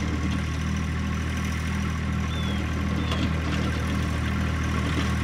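John Deere subcompact tractor's three-cylinder diesel engine running steadily as the tractor works in snow. It cuts in abruptly at the start.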